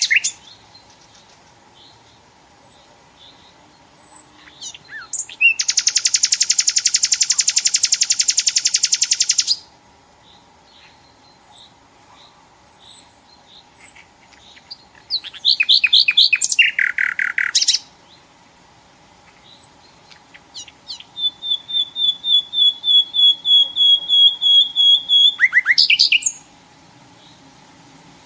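Nightingale singing in separate loud phrases: a long dry rattle lasting about four seconds, a quick series of repeated notes, and near the end a long run of evenly repeated whistled notes. Faint short high chirps fall between the phrases, over a faint steady hum.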